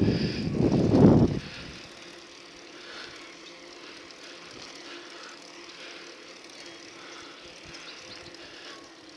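Wind buffeting the microphone as a low rumble that dies away about a second and a half in, leaving a quiet steady hiss with a faint hum. The rumble comes back just before the end.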